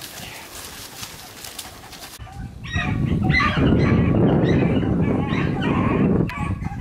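A pack of beagles baying on a rabbit's track, starting about two and a half seconds in: a loud, irregular stream of overlapping high yelps and bawls. It is the sound of hounds in full cry on a running rabbit.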